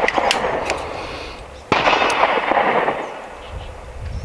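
A .30 caliber AEA Challenger Pro PCP air rifle fires a single shot, a sharp crack a little under halfway through that dies away over a couple of seconds. A few small clicks come before and after it.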